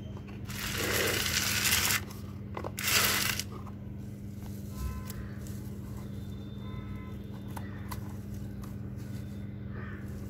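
Leafy stems of ponnaganni keerai (dwarf copperleaf) rustling and crunching as hands handle them close to the microphone: a longer burst about half a second in and a shorter one around three seconds in, with a faint steady hum underneath.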